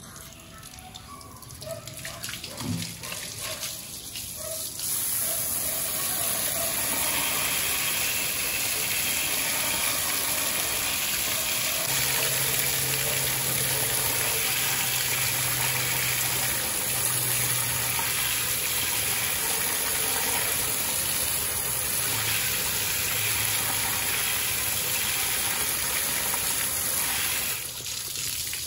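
Water from a hose spraying onto a greasy metal engine valve cover and the tile floor, rinsing off the degreaser and loosened grease. The spray builds up over the first few seconds, runs steadily, then eases off near the end.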